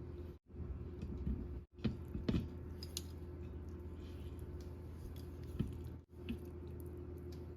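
A few light taps and clicks over a steady low hum, with the sound cutting out abruptly several times.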